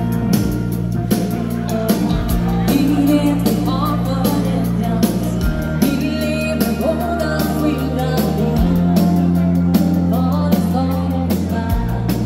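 Live dansband music: a woman singing lead over electric guitar, keyboards and a drum kit, with a steady beat and long low notes that change every few seconds.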